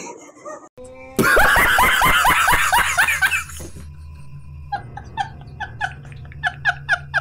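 A man laughing hard: a loud run of ha-ha-ha for about two seconds starting a second in, then after a short pause a quicker, lighter run of laughs, about four a second.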